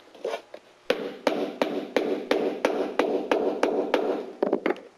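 Snap-on batten being tapped down over the seam of a metal roofing panel: about a dozen quick strikes, roughly three a second, each with a short metallic ring.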